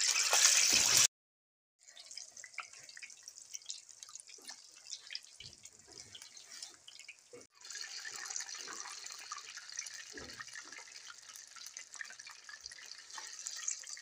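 Battered baby corn and colocasia pieces deep-frying in hot oil, sizzling and crackling. There is a loud burst in the first second as the first piece hits the oil, then the sizzle goes on steadily and grows louder about halfway through.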